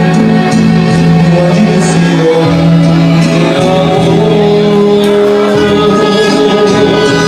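Mariachi band playing, with sustained melody notes over a steady low bass line.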